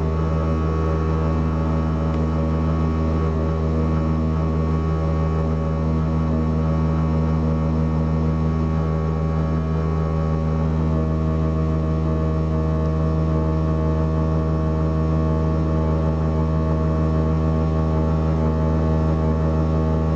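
Wall-hung toilet's plumbing after a flush, giving a loud, steady, low humming drone with a buzz of overtones that holds unchanged throughout.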